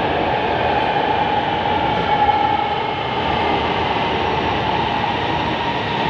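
Electric metro train running beside the platform: a steady rumble with a faint high whine over it.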